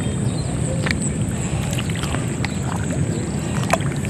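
A steady high insect drone over a low rumbling noise, with a few faint scattered clicks.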